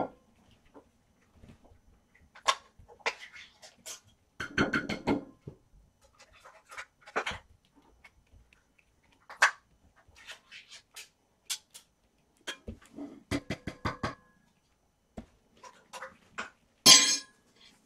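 Clinks, taps and knocks of cat-food cans and dishes being handled, many short metallic strikes, some with a brief ring, with one loud ringing clink near the end.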